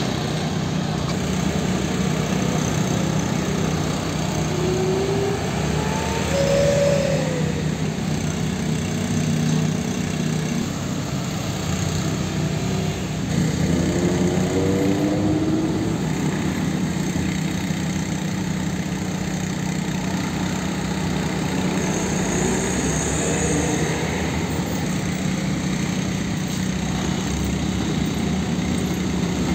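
Road traffic at a level crossing: truck engines idling and pulling slowly across, with motor scooters passing close by. Engine pitch rises as vehicles pull away, a few seconds in and again about halfway through.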